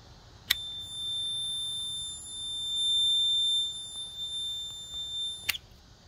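Multimeter continuity beeper sounding one steady high tone for about five seconds, opening and closing with a sharp click as the AWD rocker switch is turned on and off. The beep shows the switch's two terminals connecting when it is on, as a good switch should.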